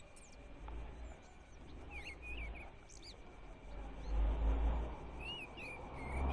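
Small birds chirping in short phrases, a few times, over a low rumble, with a rustling hiss about four seconds in.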